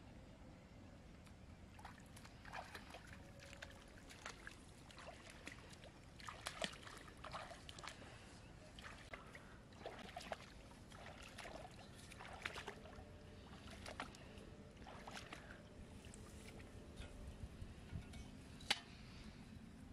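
Feet wading through shallow pond water: irregular soft splashes and sloshes, with one sharp click near the end.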